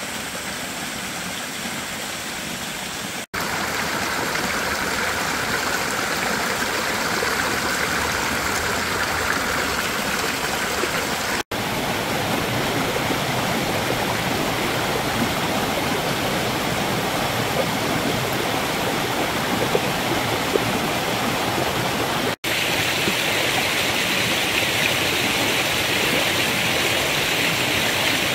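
Mountain stream rushing and splashing over rocks and small cascades, running after a rain shower. A steady rush that breaks off for an instant three times and comes back with a different tone, as different stretches of water follow one another.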